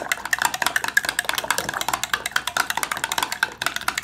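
Metal spoon stirring fast in a glass tumbler, clinking against the glass in a rapid, steady run of clicks as it whips air into a rehydrating wine-yeast starter (Lalvin EC-1118 in warm water).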